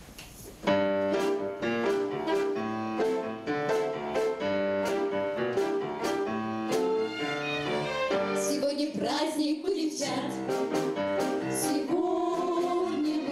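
A children's pop-symphony orchestra of strings, piano and drum kit plays an upbeat introduction with a steady beat, starting about half a second in. A girls' vocal ensemble joins in, singing, past the middle.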